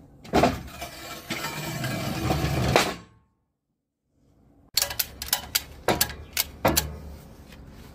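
Steel hydraulic accumulator bottle being set down into a metal rack, with a few seconds of scraping and knocking. After a brief silence, a ratchet strap is cranked tight around the bottle: a run of sharp clicks.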